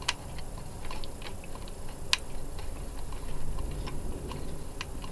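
Small metal screws and a screwdriver clicking and tapping against an oscilloscope's metal chassis as the screws are refitted: irregular light clicks, with one sharper click about two seconds in.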